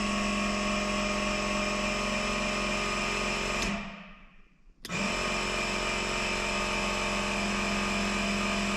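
12-volt onboard air compressor for the truck's rear helper bags running with a steady motor hum as it airs them up. It dies away about four seconds in, is silent for about a second, and then comes straight back on.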